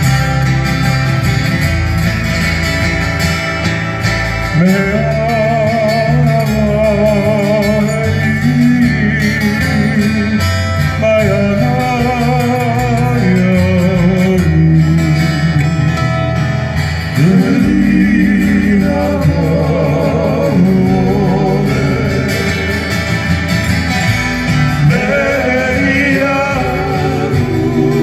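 Live Hawaiian music from a trio on acoustic guitars with bass: plucked guitar and steady bass notes, joined about four and a half seconds in by male singing with vibrato.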